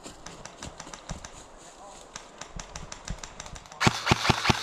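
Footsteps crunching through dry pine straw and leaves, then near the end an airsoft gun fires a rapid string of shots, about seven or eight a second.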